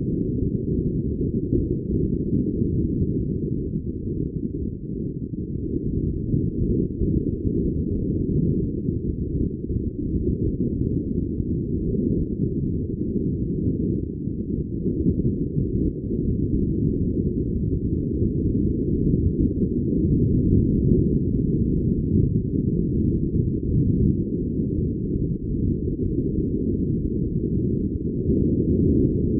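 Wind and water noise aboard a sailboat under way: a steady, muffled low rumble with nothing in the higher range.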